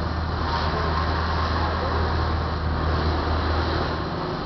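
Radio-controlled model boat running across the water: a steady motor hum with water noise, a little fainter about four seconds in as the boat moves away.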